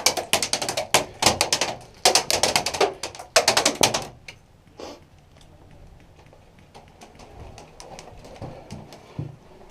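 Airsoft guns firing full-auto, four rapid bursts of sharp clicking shots in the first four seconds. Fainter, scattered shots follow.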